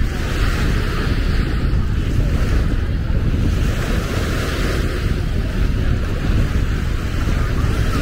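Sea waves washing onto the shore under steady wind buffeting the microphone, with a heavy low rumble.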